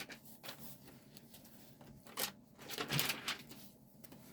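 Protective plastic film being peeled off a new laptop LCD screen, in several short rustling, crackling rips, the loudest two to three seconds in.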